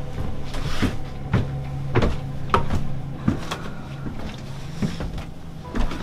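A series of irregular knocks and clunks, roughly one or two a second, over a low steady hum.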